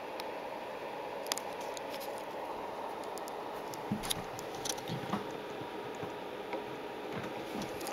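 Quiet room noise with a faint steady hum, broken by a few small clicks and soft knocks, most of them about four to five seconds in: handling noise.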